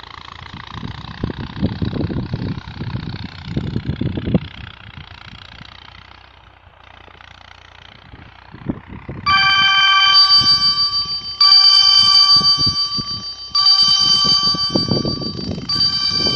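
A phone ringtone starts suddenly about nine seconds in: a chord of steady electronic tones that repeats in blocks of about two seconds, four times. Before it there are only low rumbles over a faint steady hiss.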